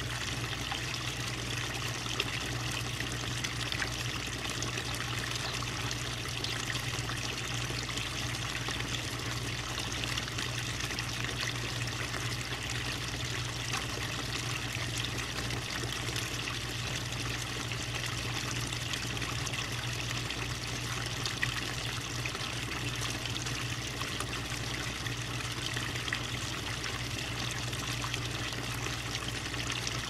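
Small garden pond waterfall: water trickling and splashing down stacked stone ledges into the pond, a steady, even splashing with no change.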